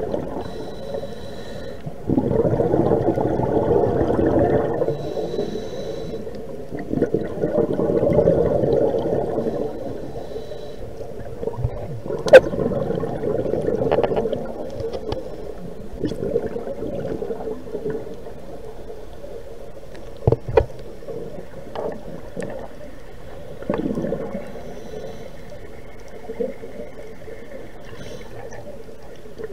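Scuba regulator breathing heard through the water: a faint hissing inhale, then a gurgling rush of exhaled bubbles, repeating about every five seconds and growing fainter later on. A couple of sharp knocks stand out.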